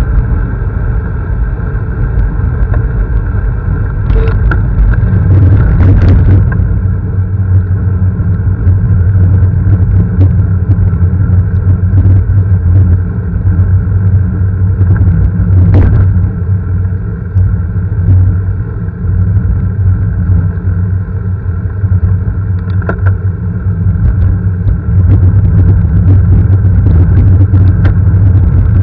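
Small motorcycle engine running steadily while riding, with wind rumble on the microphone. A few brief knocks, mostly around the first quarter and halfway through.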